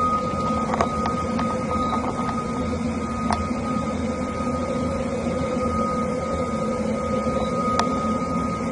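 A steady, unbroken droning hum made of several held tones, one of them high and piercing, with a few faint clicks over it; this is the mysterious sky sound known as "the Hum".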